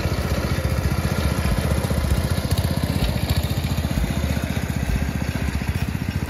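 A small petrol engine running steadily close by, with a rapid, even beat.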